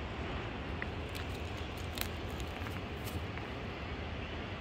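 Steady rush of a shallow river running over stones, mixed with a low hum of traffic, and a few faint clicks.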